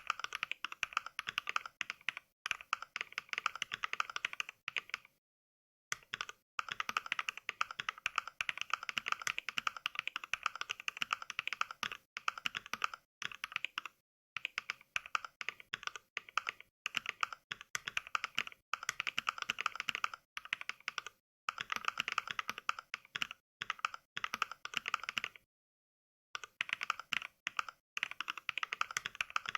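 Fast touch-typing voiced by Mechvibes' NK Cream mechanical-switch sound pack: a rapid stream of key clacks. It breaks off in brief pauses, the longest about five seconds in and again near the end.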